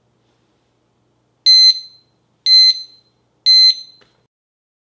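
ThermoPro TP-11 wireless thermometer receiver sounding its timer alarm as the countdown reaches zero: three short, high-pitched electronic beeps about a second apart, starting about one and a half seconds in.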